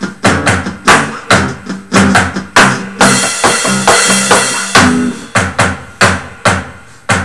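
Band music: an acoustic bass guitar plays low notes under drums keeping a steady beat of about two and a half hits a second, with a cymbal crash about three seconds in.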